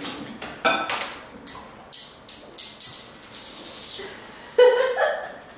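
Background music with a jingling, tambourine-like percussion beat for the first four seconds or so, then a brief loud voice sound about four and a half seconds in.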